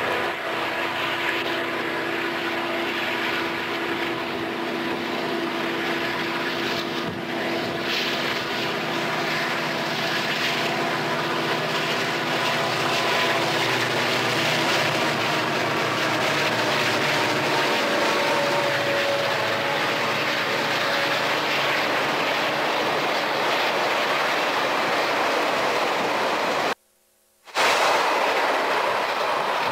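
Union Pacific diesel-electric locomotives working a freight train past, a steady engine drone with a whine. Near the end the sound cuts out for a moment and returns as freight cars roll by.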